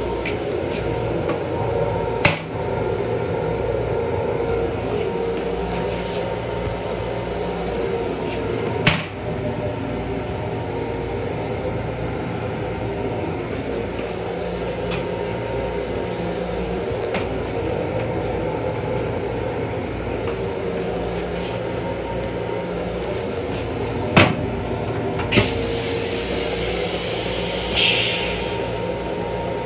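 Steady hum and rumble of an LIRR M7 railcar heard inside its restroom, broken by a few sharp clacks, among them the plastic toilet lid being raised. A short hiss comes near the end.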